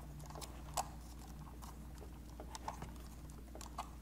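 Scattered light plastic clicks and taps from a DJI Mavic 2 Zoom drone being handled as its folding arms are swung open, over a faint steady low hum.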